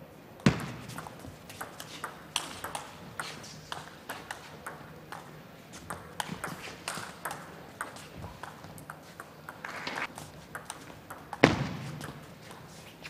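Table tennis ball clicking off rubber-faced bats and bouncing on the table during a rally, a steady run of sharp ticks. Two much louder sharp knocks stand out, one just after the start and the loudest near the end.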